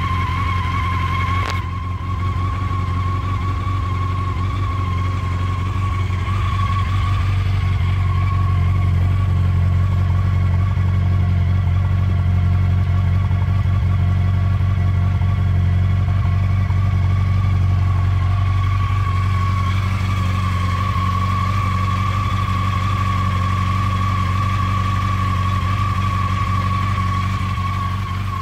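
2014 Yamaha FJR1300's inline-four engine idling steadily just after a cold start, a high-mileage engine running evenly, with a steady high whine over the idle. A single click sounds about a second and a half in.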